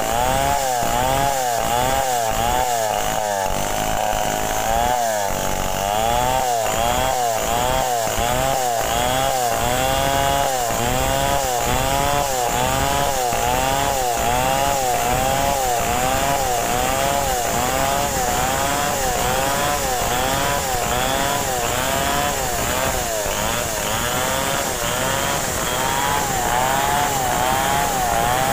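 A Stihl chainsaw runs under load while ripping a log lengthwise. Its engine pitch rises and falls steadily, about twice a second, as the chain bites into the wood.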